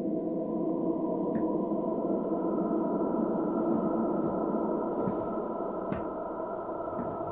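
Held, dark drone from the Aetherium 'Whispers of the Damned' sampled-voice patch, built from growled vocals recorded inside a cardboard spring-tube toy that gives it a cavernous tone; several steady pitches sound together, with a couple of faint clicks.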